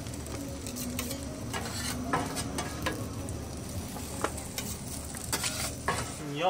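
Stir-fried flat rice noodles sizzling on a hot flat-top griddle, with a metal spatula scraping and clicking against the steel plate several times as portions are scooped into paper bowls.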